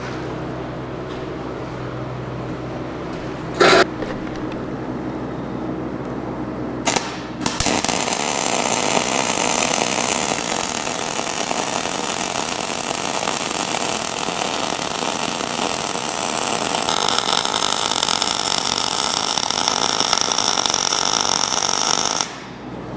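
Electric arc welding on steel: a short arc strike, two brief blips, then a long steady arc of about fifteen seconds as weld is laid to build up worn metal, stopping suddenly shortly before the end. Before the long weld, a low steady machine hum.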